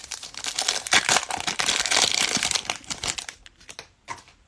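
Plastic wrapper of a 2021 Contenders Football trading card pack crinkling and tearing as it is ripped open, with a few light clicks near the end as the cards are handled.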